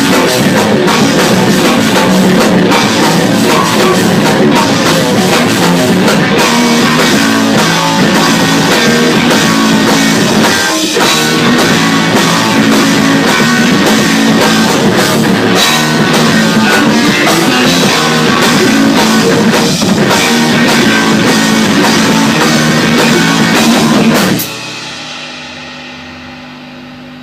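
Loud rock music with a drum kit and electric guitar, driving on with a steady beat. About three-quarters of the way through it cuts off suddenly, leaving a quieter held tone that slowly fades.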